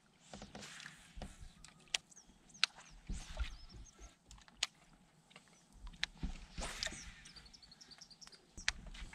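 Outdoor ambience on open water: birds chirping over a low, gusty wind rumble on the microphone, with several sharp clicks scattered through.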